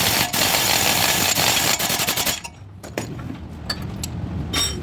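Pneumatic tool hammering rapidly in a loud burst that stops about two seconds in, followed by light metal clicks and clinks.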